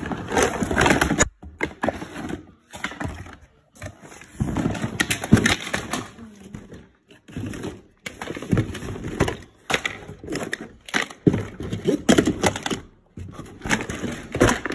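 Hard plastic Hot Wheels Mario Kart track pieces being handled, knocking and clattering irregularly against each other and the wooden floor, with some rustling.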